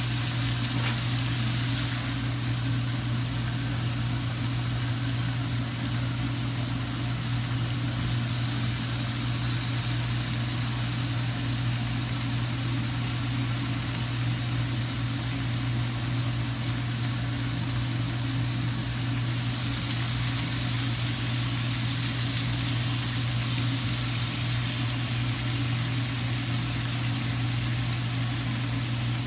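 Beef steak sizzling in a frying pan as an even hiss, over a steady low hum that is the loudest part of the sound.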